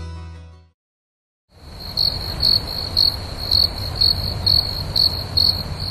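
The last of a song's music fades out, then after a second of silence crickets start chirping, a high pulsing trill about twice a second over a low rumbling background.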